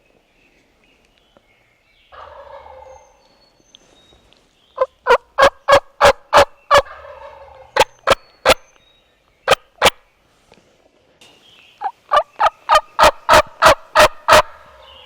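Turkey calling: a rattling gobble about two seconds in, then two runs of loud, sharp, evenly spaced yelp-like notes, the second run faster than the first.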